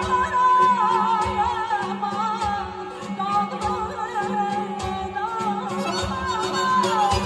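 A woman singing an ornamented, wavering Azerbaijani melody into a microphone, over a band with accordion and a drum beating about once a second.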